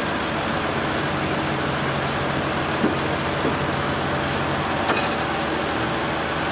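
Sawmill machinery running steadily, a constant mechanical hum and rumble with a few light knocks.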